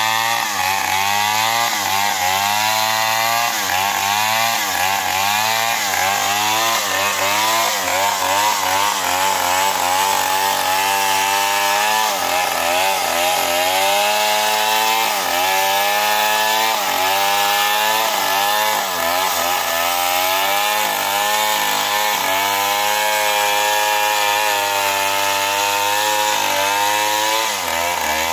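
Stihl chainsaw running at high revs while rip-cutting a trembesi (rain tree) log lengthwise. The engine pitch keeps dipping and recovering every second or two as the chain loads up in the cut and frees again.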